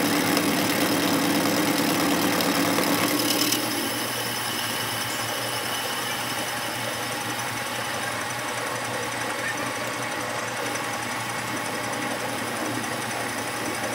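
Metal lathe running with its chuck spinning a workpiece, a steady mechanical hum and rattle. About three and a half seconds in it turns quieter and carries on evenly.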